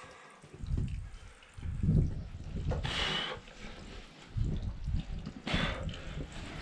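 Water trickling and dripping down the rock of a scramble gully, with irregular low rumbles on the microphone and two brief hissy scuffs, about three and five and a half seconds in.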